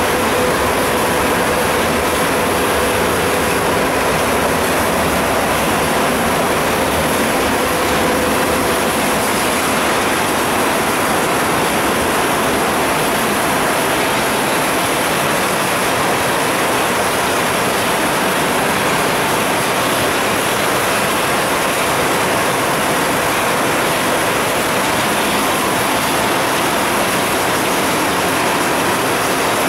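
Steady, loud machinery noise of an industrial plant, an even din with a faint steady hum that fades out about eight seconds in and another fainter hum that carries on.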